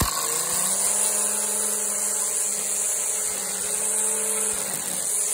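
String trimmer running at a steady speed with a constant whine, its line cutting grass as it is pushed along on a wheeled frame.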